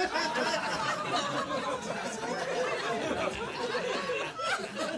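Audience laughing and chattering in reaction to a roast joke, a steady mix of many chuckles and murmuring voices.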